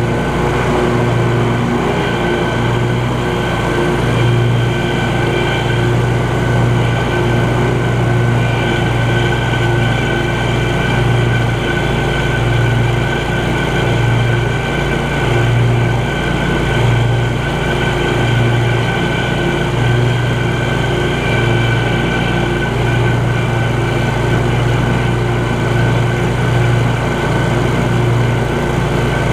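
Scag Cheetah 52-inch zero-turn mower running steadily while mowing, heard close up from on the machine: an even engine drone with a low hum that swells and eases slightly.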